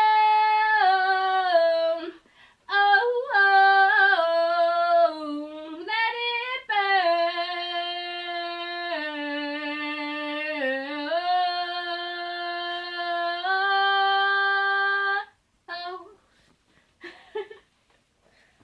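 A female voice singing unaccompanied, a wordless closing run on "oh" that holds long notes and slides between pitches. It breaks off about fifteen seconds in, followed by a few brief faint sounds.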